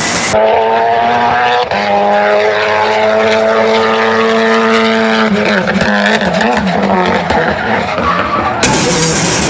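Ford Fiesta rally car's turbocharged engine held at high, steady revs at speed, with a brief lift about one and a half seconds in. From about halfway the pitch wavers up and down with sharp exhaust cracks mixed in, and near the end the sound changes abruptly.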